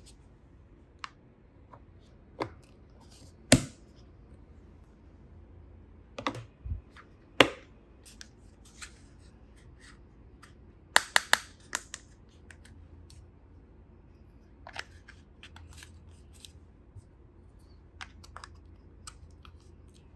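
Small plastic toy pieces handled and set down: scattered clicks and taps, with a few sharper knocks and a quick cluster of clicks about eleven seconds in.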